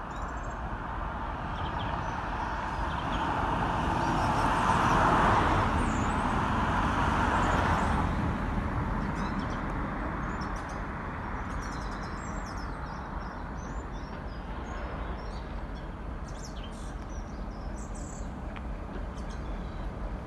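Class 60 diesel locomotive moving slowly, its engine a steady low rumble. A louder rushing noise swells up and dies away over the first ten seconds. Birds chirp in the background later on.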